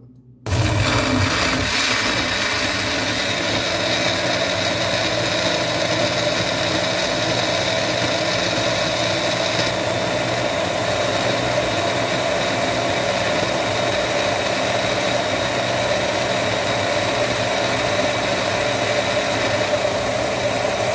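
Personal bullet-type blender switching on about half a second in and running steadily as it blends cucumber pieces, some still frozen, into juice. A high edge to the sound drops away about ten seconds in.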